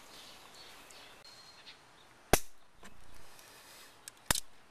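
Two sharp clacks about two seconds apart, with a few fainter clicks between them, as parts of a newly unboxed lawn mower are handled.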